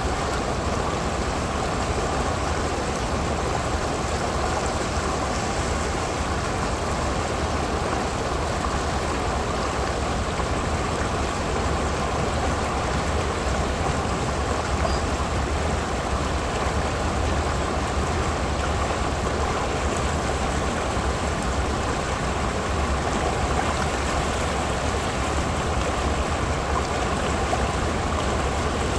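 Shallow stream rushing and splashing over a small rock ledge in a steady, unbroken flow.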